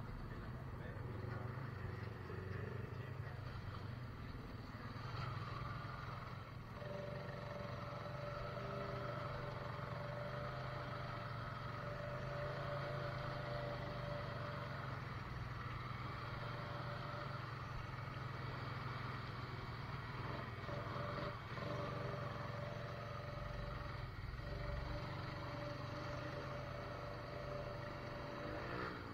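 Four-wheeler ATV engines running steadily, with a thin steady whine that comes in about seven seconds in, drops out for a few seconds and returns.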